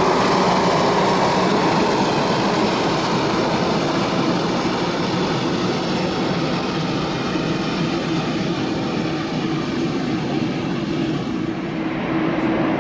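Jet noise from a departing Tigerair Taiwan Airbus A320-family airliner, loud and slowly fading as it climbs away, its pitch falling in the first few seconds.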